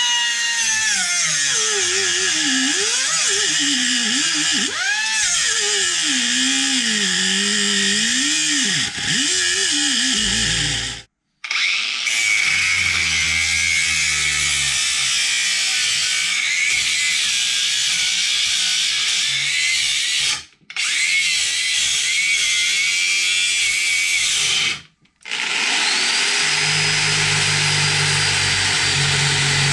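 Power tools cutting a rusty steel exhaust pipe in turn. First a Porter Cable 3-inch air cut-off wheel whines with its pitch wandering up and down as it bogs under load. After a brief break a Porter Cable 20-volt cordless grinder with a 4.5-inch cutoff wheel grinds steadily, and near the end a corded Porter Cable reciprocating saw with a bimetal blade saws with a low buzz.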